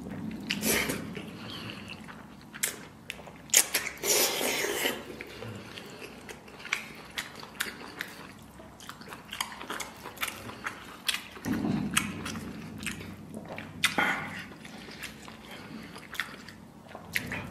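Close-miked eating of stir-fried instant noodles and fried egg: wet chewing, lip smacks and mouth clicks, with noodles slurped in. There are louder, longer stretches about four seconds in, around twelve seconds and at fourteen seconds.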